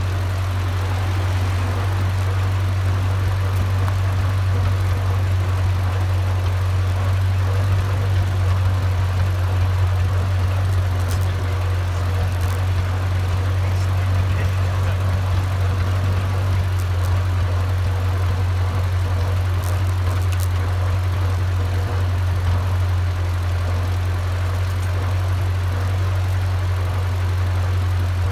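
Small vintage tractor's engine running at a steady pace as the tractor drives along, a constant low hum heard close up from a pole mounted on the tractor's front.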